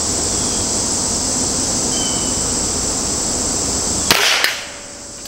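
Hatsan Model 95 .25-calibre spring-piston air rifle firing a single shot about four seconds in, a sharp crack over a steady hiss with a high insect buzz.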